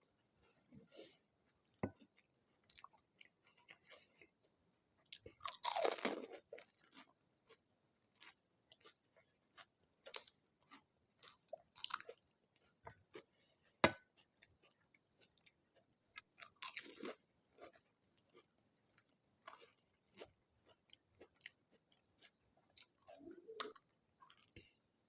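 Close-miked eating of pani puri: crisp hollow puri shells crunching between the teeth and chewing, in scattered bites. The loudest crunch comes about six seconds in.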